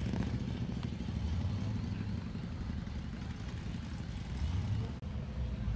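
Low, steady engine rumble of cars rolling slowly past at low revs, with a brief break about five seconds in.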